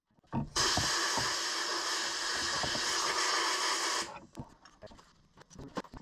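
Compressed-air blow gun hissing steadily for about three and a half seconds, blowing crud out of the head-bolt holes in a John Deere 1010 diesel engine block, then cutting off sharply. Light metal clicks and taps follow as parts are handled.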